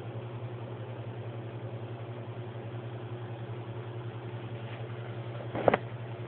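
Domestic cat purring close to the microphone, a steady low rumble, with a brief bump about five and a half seconds in.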